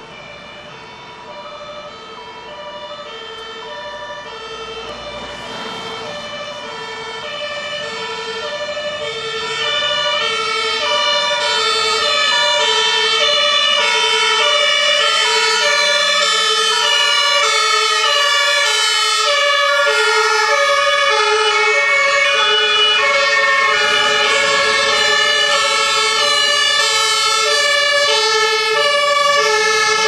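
Several German two-tone fire-engine sirens alternating high and low, running out of step with each other. They grow louder over the first ten seconds or so as the vehicles approach, then stay loud.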